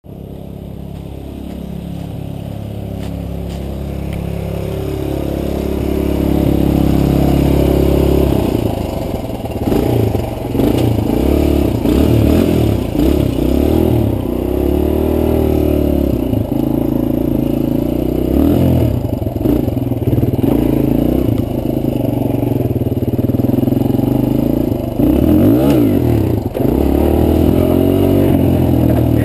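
Suzuki dirt bike engine running steadily and gradually getting louder for the first several seconds, then revving up and down repeatedly as the bike is ridden over rough grass and dirt.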